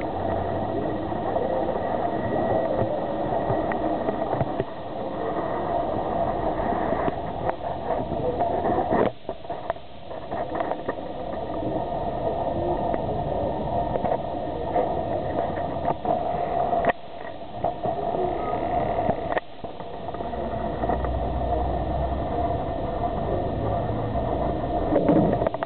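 Tram running along its line, heard from inside the car: a steady rumble and rattle of the car on the rails, with a few sharp clicks along the way.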